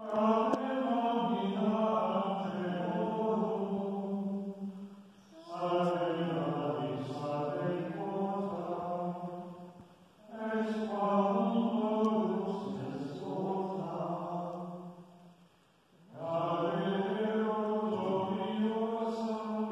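A group of Benedictine monks singing Compline in unison plainchant, each phrase mostly held on one reciting note. There are four long phrases, with short breaks between them.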